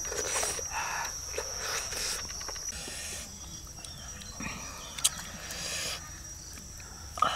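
A steady, high-pitched insect drone from the surrounding forest, with soft close-up chewing and lip-smacking in the first few seconds and a sharp click about five seconds in.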